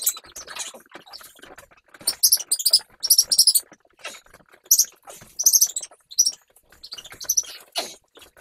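Young puppies squeaking and yelping in a series of short, high-pitched squeals, most of them from about two seconds in, with light pattering between them.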